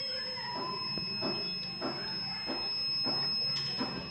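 Piezo buzzer of a home-made rain detector alarm sounding one continuous high-pitched tone, the alarm signalling water across its two-blade sensor. Faint voices are heard behind it.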